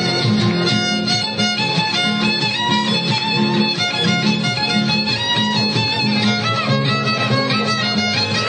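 String band music: a violin carries the melody over strummed acoustic guitars, with a steady rhythm.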